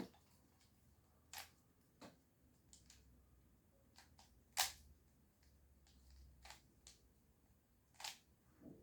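Faint, irregular plastic clicks of a 3x3 Rubik's cube as its layers are turned, about ten separate clicks with one louder clack near the middle.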